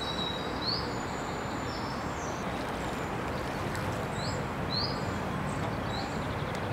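Small birds chirping repeatedly in short rising notes over a steady outdoor rush of background noise.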